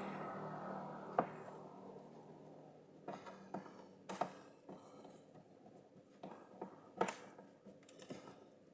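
Scattered light clicks and knocks from screws, a screwdriver and plastic case parts being handled on an all-in-one computer, with a faint steady hum that fades out over the first two seconds.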